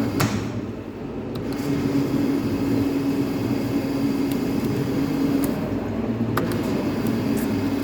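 CNC lathe running with a steady mechanical hum, joined about a second and a half in by a steady drone; a few sharp clicks.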